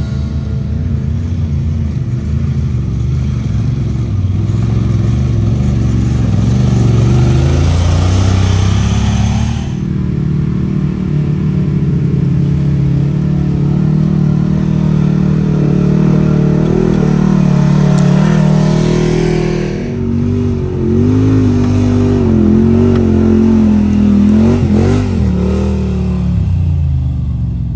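Side-by-side UTV engines working up a rocky trail climb, revving and easing off in repeated throttle blips so the pitch rises and falls, with short dips about ten and twenty seconds in.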